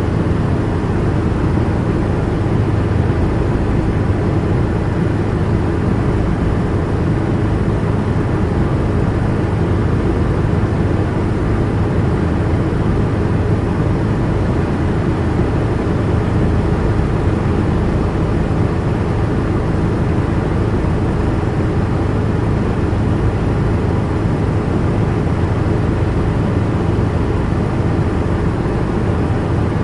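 Helicopter in flight heard from inside the cabin: a steady, unbroken drone of engine and rotor with a strong low hum.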